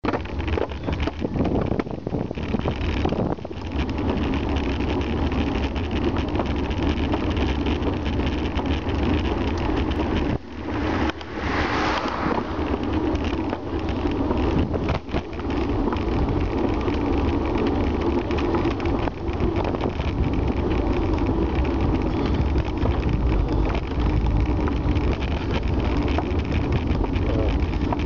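Wind rumbling on the microphone of a moving bicycle, with steady tyre and road noise, and a brief louder hiss about eleven seconds in.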